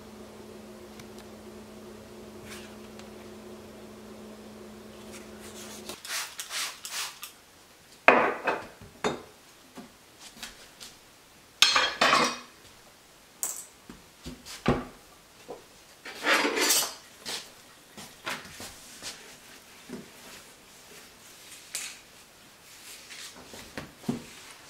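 A steady hum for about the first six seconds, then kitchen clatter: pots, pans and dishes handled and set down on a counter, with several sharp knocks and some rubbing.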